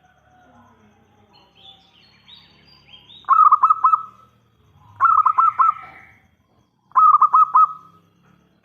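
Zebra dove (perkutut) singing: three short phrases of four or five quick, rolling coos, about two seconds apart. Fainter high chirps come before the first phrase.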